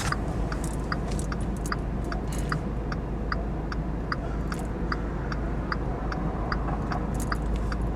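Car turn-signal indicator ticking steadily, about two to three clicks a second, over the low hum of the car.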